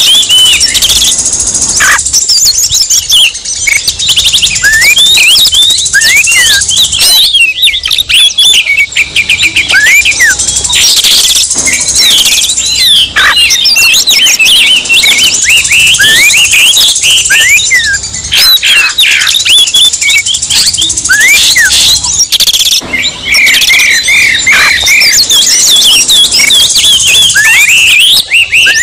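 Oriental magpie-robins (kacer) singing loudly and without a break: a dense stream of rapid whistles, chirps and sliding notes, several songs layered together as an agitated, fighting-style lure song.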